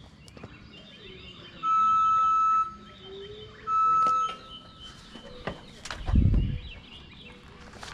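Two steady electronic beeps at one pitch, each about a second long, about two seconds apart. Birds chirp in the background, and there is a short low rumble about six seconds in.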